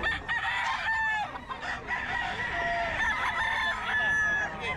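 Several gamecock roosters crowing at once, their long crows overlapping one after another.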